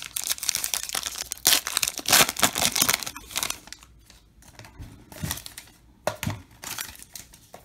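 Foil wrapper of a baseball card pack crinkling and tearing open, loudest in the first three seconds. After that come softer rustles as the stack of cards is handled, with two short louder rustles near the end.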